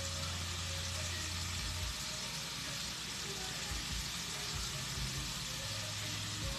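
Raw shrimp frying in a hot skillet, a steady sizzle.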